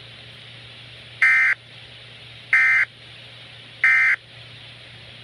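Emergency Alert System end-of-message signal: three short bursts of the screeching SAME digital data tone, about a second and a half apart, marking the end of the warning broadcast. A faint steady hum runs underneath.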